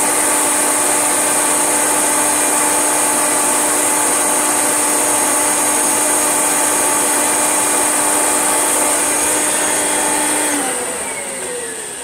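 Vacuum cleaner motor running steadily with a high-pitched whine, then switched off about ten and a half seconds in, its pitch falling as it winds down.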